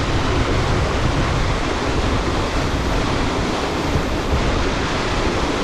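Raging creek water rushing over rocks and falls, a loud steady rush with no breaks.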